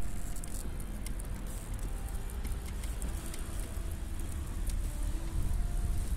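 Steady low rumble with light crackling from small wheels rolling over rough, leaf-strewn asphalt, as a touring recumbent trike moves along a street.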